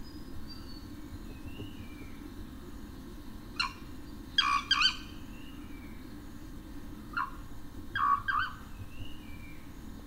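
Recorded song of a tit (genus Parus) playing back. It comes in two bursts of short, sharp notes about three seconds apart, each a quick run of two or three notes, with fainter thin falling whistles in between, all over a steady low hum.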